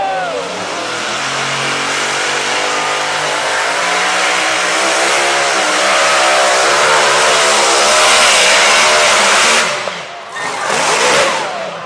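Tractor engine running hard under heavy pulling load, its pitch wavering and growing louder for about nine seconds. Then it drops away sharply, with one more short burst of throttle near the end.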